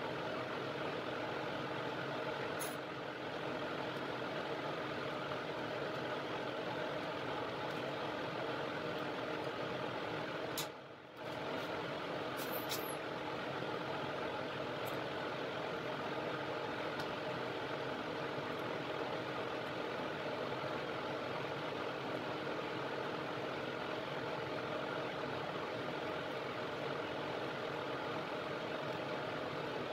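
Steady hum of a laminar-flow clean bench's blower fan. It drops away briefly about eleven seconds in, and there are a few faint clicks.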